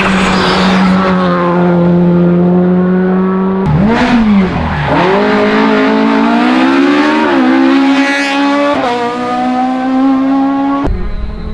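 Rally car engine running hard at high revs. Its pitch holds steady, dips sharply about four seconds in, then climbs again, and changes abruptly twice near the end.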